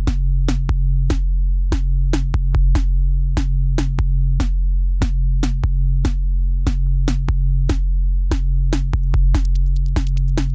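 Electronic background music: a drum-machine beat of sharp hits over a steady low bass.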